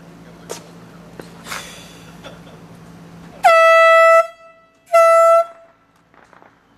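Handheld canned air horn blown in loud, steady single-pitch blasts: one of about a second starting three and a half seconds in, a shorter one about a second later, and a third beginning at the very end. The horn is sounded as a warning ahead of a gas-balloon detonation.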